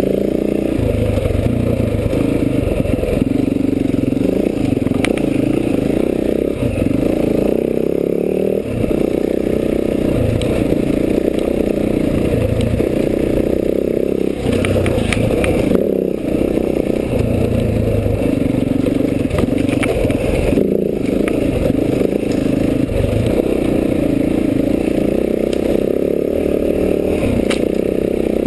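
Enduro dirt bike's single-cylinder engine running along a trail, its note rising and easing with the throttle. There are occasional clattering knocks from the bike over rough ground.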